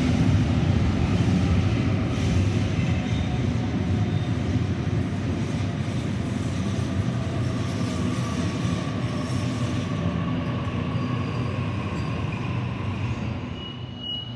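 Sydney Trains electric passenger train at an underground platform: a steady low rumble that eases near the end. A short high beep sounds near the end.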